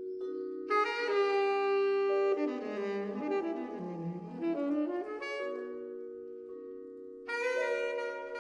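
Saxophone and vibraphone duo playing a slow jazz ballad: the saxophone holds long notes over ringing vibraphone chords, with a phrase that dips low and climbs back in the middle and a fresh entry near the end.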